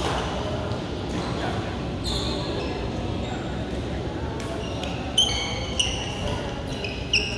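Badminton doubles rally in a large echoing hall: sharp racket hits on the shuttlecock about five, six and seven seconds in, with short high sneaker squeaks on the court floor.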